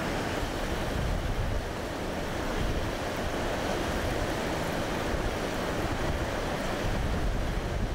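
Steady rushing of flowing creek water, with wind rumbling on the microphone.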